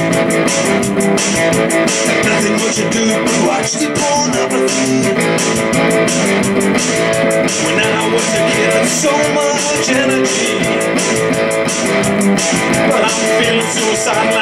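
Electric guitar playing an instrumental passage of a rock song, strummed with a steady rhythm.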